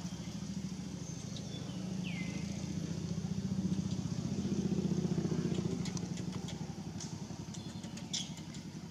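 A small vehicle engine running with a fast, even pulse, growing louder to about halfway and then fading, as of a motorbike passing by.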